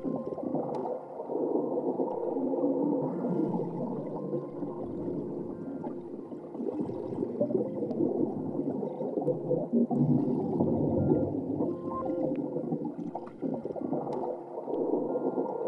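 Experimental underwater soundscape: a dense, continuous low wash of gurgling, whale-like sound with a few held tones over it.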